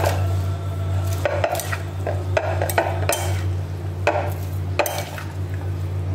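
Hand tossing a chopped salad of lettuce, cabbage and vegetables in a large bowl: irregular rustles and clicks of leaves and vegetables, over a steady low hum.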